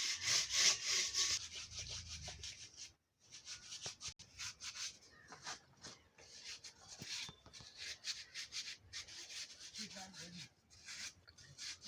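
Quick, rhythmic rubbing or scraping strokes, several a second, with a short pause about three seconds in.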